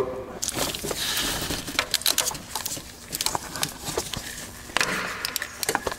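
Socket wrench working a 15 mm engine ground bolt loose on an engine block: irregular short metallic clicks and clinks.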